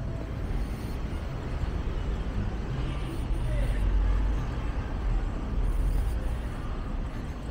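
Urban street traffic: a steady low rumble of vehicles that swells as one passes about four seconds in and again around six seconds.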